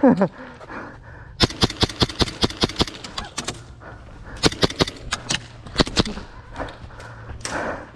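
Airsoft guns firing in two rapid strings of sharp snapping shots, several a second, with a pause of about a second between the strings.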